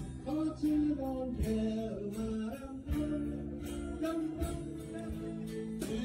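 Music: a slow song with singing and guitar over a steady beat.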